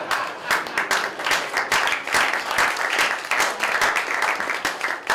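A small audience applauding: many hands clapping at once in a dense, irregular patter, as an applause break in response to a joke.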